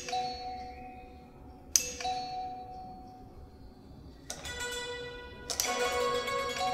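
Yangqin (Chinese hammered dulcimer) struck by a robot's bamboo hammers. Single notes come about two seconds apart, each ringing on and slowly fading. From about four seconds in, several notes sound together, louder towards the end.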